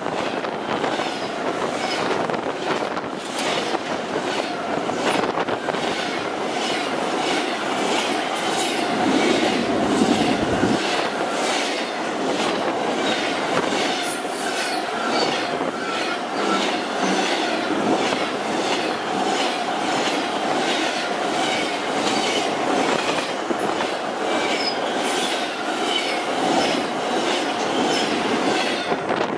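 Freight cars of an intermodal stack train rolling past close by: a steady rushing rumble of steel wheels on rail with a repeating clickety-clack from the wheel sets and a steady ringing tone.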